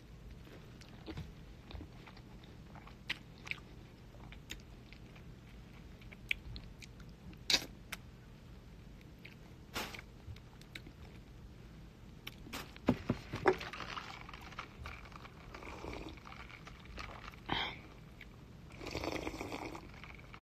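Someone eating a chicken wing close to the microphone: faint chewing and biting with scattered small clicks and lip smacks, and a quick run of louder clicks about two-thirds of the way through. Near the end comes a short sip from a cup.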